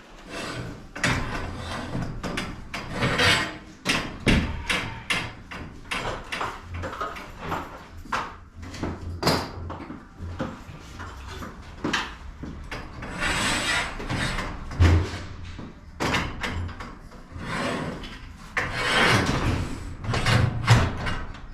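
Repeated knocks, clanks and scraping from work on a garage door and its hardware, with several longer rolling or sliding swells among the sharp hits.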